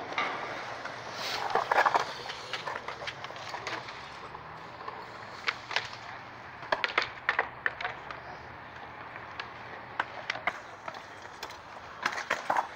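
Skateboard wheels rolling over a concrete skatepark bowl, swelling about one to two seconds in, with scattered sharp clacks of boards and trucks knocking on concrete and coping.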